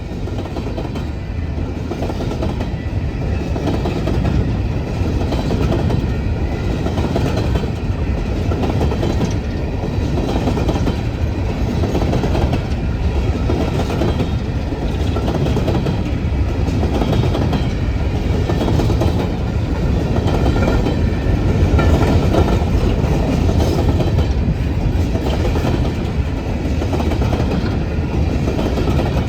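Coal train passing, a steady low rumble with its steel wheels clicking in a repeating rhythm over the rail joints.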